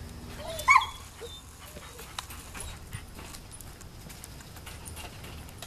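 A dog gives one short whine about half a second in. Afterwards only faint scuffs and ticks, like steps on a dirt path.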